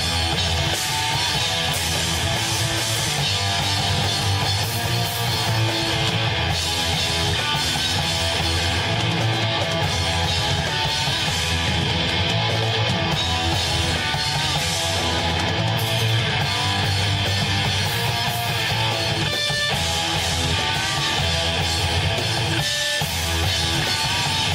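A band playing live rock music with guitar to the fore, loud and steady.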